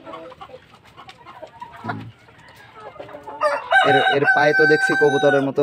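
Rooster crowing: one long, loud held call of about two seconds starting a little past halfway, over low clucking of a shed full of chickens.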